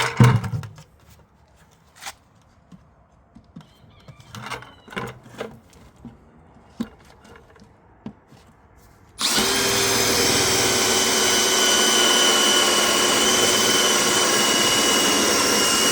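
Light knocks and handling clicks, then about nine seconds in a power drill starts suddenly and runs steadily with a held whine: a 1-1/8 inch hole saw cutting a hole in the side of a plastic 5-gallon bucket.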